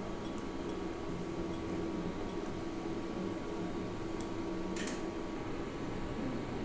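Steady mechanical hum of room background noise, like a fan or air conditioning, with a faint thin steady tone. A short sharp click comes a little after halfway.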